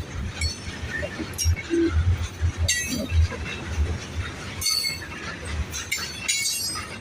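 Freight train cars rolling past, wheels thumping over the rail joints, with a few sharp metallic clanks and squeals spread through the passage.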